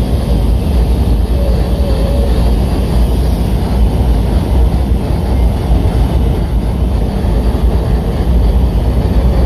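Deep, steady rumble of a DF4B diesel-electric locomotive working inside a tunnel as it pushes a train of rail-laden flat wagons slowly out.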